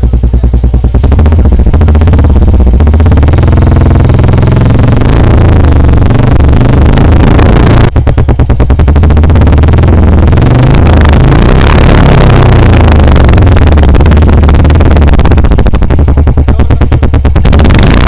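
Royal Enfield Bullet 350's single-cylinder engine running through an aftermarket chrome-and-black silencer packed with ceramic wool. It gives a deep, steady thump and is revved up and down several times, with the revs dropping sharply for a moment about eight seconds in.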